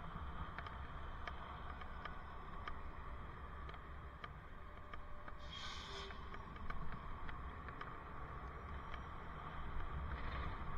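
Wind buffeting and road rumble picked up by a helmet-mounted camera on a moving bicycle, with scattered light clicks and rattles. A brief hiss comes about halfway through and again near the end.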